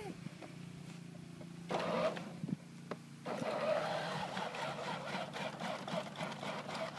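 Battery-powered ride-on toy jeep's electric drive motors and plastic gearboxes running as it drives over grass: a steady low hum, joined by a louder, busier whir from about three seconds in.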